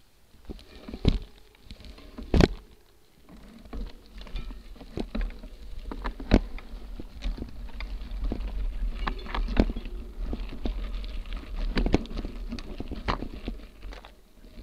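Motobecane Fantom Cross gravel bike jolting over a rough trail, with irregular sharp knocks and rattles as the front wheel hits bumps, over a low rumble of tyres and wind that is heaviest in the middle.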